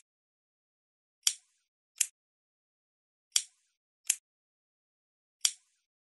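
Lighter clicking: sharp clicks in pairs about three-quarters of a second apart, a new pair every two seconds or so, the first click of each pair slightly longer than the second, with silence between.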